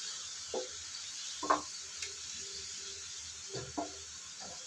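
Wooden spatula stirring vermicelli and vegetables in a frying pan, with a few short scrapes against the pan over a steady sizzle from the just-added water.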